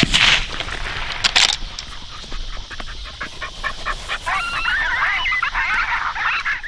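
A dog pants rapidly close by. Loud noisy bursts come right at the start and again about a second later. From about four seconds in, high, wavering canine yelps and whines follow one another.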